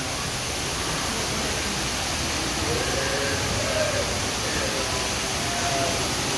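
Steady rushing water in the boat ride's flume, with faint distant voices in the background.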